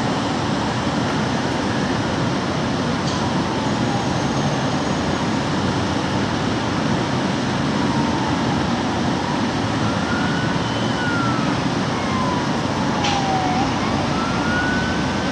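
A steady rush of city noise, with a faint siren in the distance wailing slowly up and down. The siren grows clearer in the second half.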